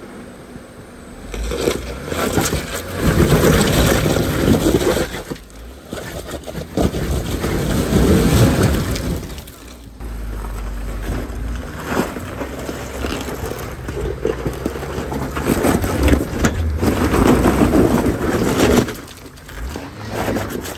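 Jeep crawling a rocky off-road trail: its engine pulls in surges under throttle while the tyres crunch and grind over rock, with a few sharp knocks in the second half.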